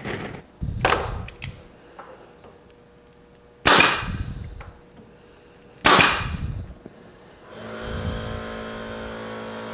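Pin nailer firing twice, about two seconds apart, driving 5/8-inch pin nails to tack a maple strip in place. A steady motor hum starts near the end.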